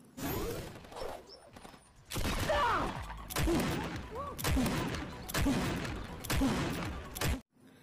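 Rapid bursts of gunfire-like shots from a Nerf blaster battle, in several clusters starting about two seconds in, with brief shouted voices among them.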